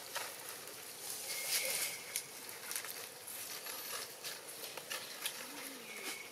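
Dry and green leaves rustling and crackling irregularly as a baby macaque handles them on the ground, loudest about one and a half seconds in. A thin steady high whine comes and goes a couple of times in the background.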